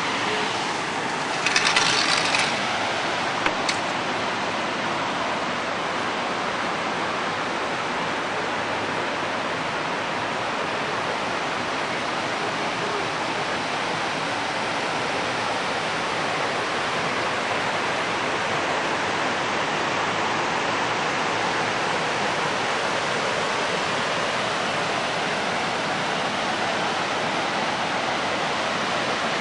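Steady rushing of a mountain river's rapids, an even wash of water noise. A short louder rustle comes about two seconds in, with a single click soon after.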